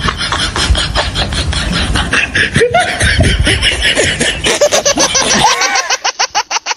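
Rapid, evenly pulsing laughter, about six beats a second, with a few short rising and falling pitch swoops in the middle. Low street rumble underneath drops away near the end.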